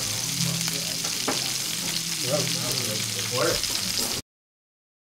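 Bacon rashers frying in a pan, with a steady sizzle and a few light knocks from the pan. The sound cuts off abruptly about four seconds in.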